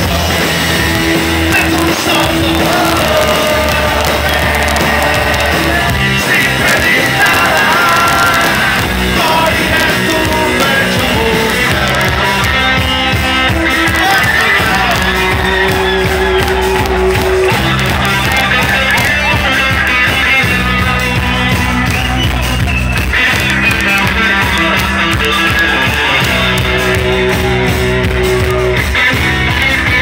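A rock band playing live and loud: bass guitar, drums and electric guitar under a male singer's voice, with steady bass notes changing every second or two.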